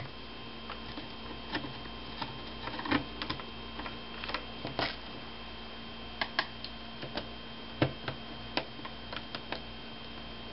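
Small, irregular clicks and taps of a screwdriver working screws out of the plastic screen bezel of a laptop, over a steady faint electrical hum.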